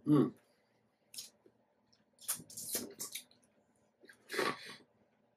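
Close-up mouth sounds of eating juicy fruit: a few short, wet bites, chews and slurps separated by silent gaps, with a cluster of them in the middle.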